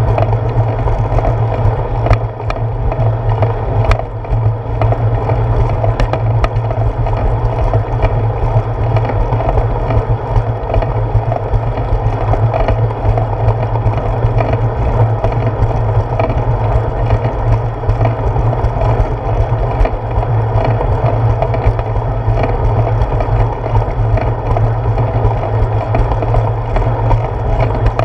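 Bicycle rolling along a concrete sidewalk, heard through a handlebar-mounted GoPro in its housing as a steady, loud rumble of tyre and ride vibration, with a few light knocks in the first seconds.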